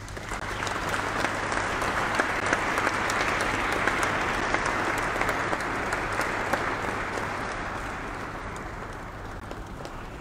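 Audience applauding, many hands clapping together. It swells over the first couple of seconds and slowly dies down toward the end.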